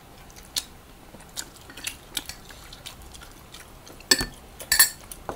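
Close-up eating sounds: chewing and wet mouth smacks from people eating chicken adobo and rice by hand, with scattered small clicks and two louder smacks about four and five seconds in.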